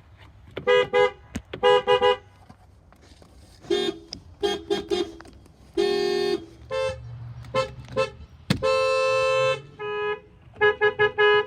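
Car horns honking in quick series: short beeps and double and triple toots from horns of several pitches, with two longer blasts of under a second, a lower one about six seconds in and another about nine seconds in.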